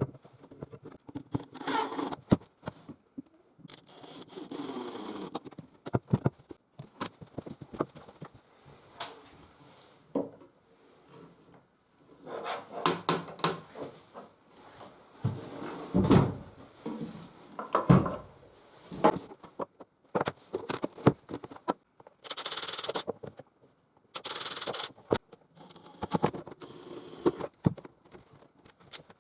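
Irregular knocks, clicks and scraping of objects being handled, with two short hissing bursts about two-thirds of the way through.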